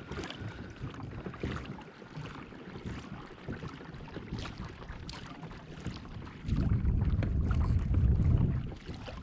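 Light ticks and water noise around a fishing kayak. About six and a half seconds in, a loud gust of wind buffets the microphone for about two seconds.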